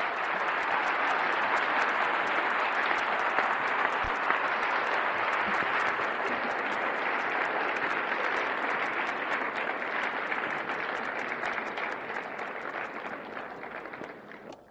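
Audience applauding after a talk, a steady dense clapping that eases slowly in the last few seconds and then stops abruptly.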